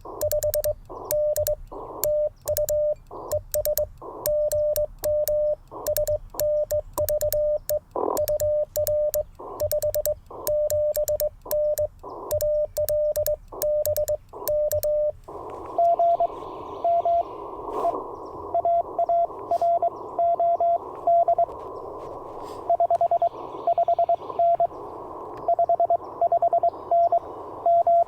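Morse code sent on a sideswiper (cootie) key: the Icom IC-705's sidetone is keyed in dots and dashes, and the key's paddle contacts click sharply with every element. About halfway through, the radio goes over to receive: a band of receiver hiss, through which another station answers in Morse code at a slightly higher pitch.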